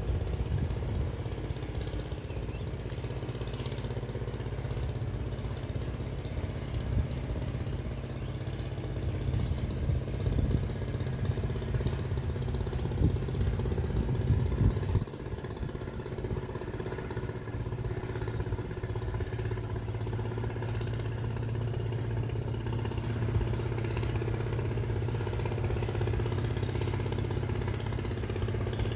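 An engine running steadily at idle, with wind buffeting the microphone.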